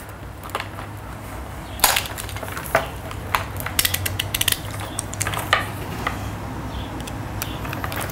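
Scattered light clicks, taps and rustles of small parts and tools being handled on a workbench, over a steady low hum.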